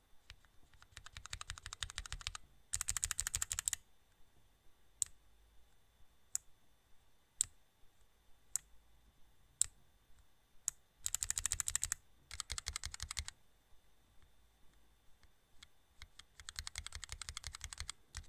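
Rapid clicking in five bursts of one to two seconds each, with about six single sharp clicks roughly a second apart in the middle stretch.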